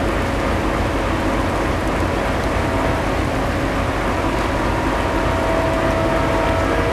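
Steady rain with a low rumble. From about five seconds in, the faint steady whine of an approaching WDP4 diesel locomotive grows in over it.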